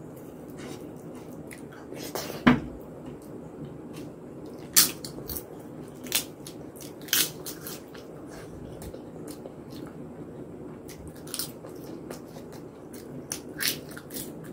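A person eating soft khichuri (rice and lentils) by hand: wet chewing and mouth smacks, with sharp smacking clicks now and then, the loudest about two and a half seconds in.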